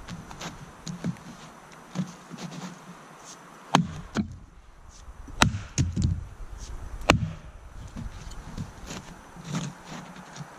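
Axe chopping into a fallen log: a series of sharp wooden knocks, the heaviest about four, five and a half and seven seconds in, with lighter blows between.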